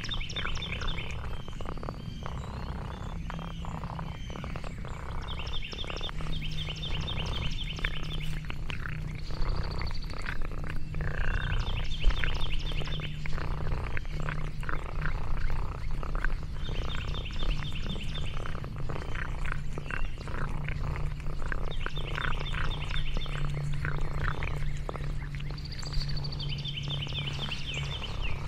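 A cat purring close to the microphone, a steady low rumble, with scattered soft clicks. A bird sings a short high trill every four to five seconds.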